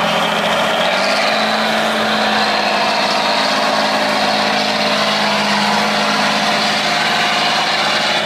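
Tatra 813 eight-wheel-drive trial truck's diesel engine running hard under load on a steep climb. Its pitch rises slightly about a second in, then holds steady and loud.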